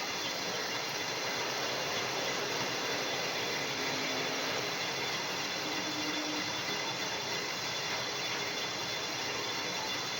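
Lathe running and turning a round plate: a steady mechanical hiss and rumble with faint steady whine tones over it.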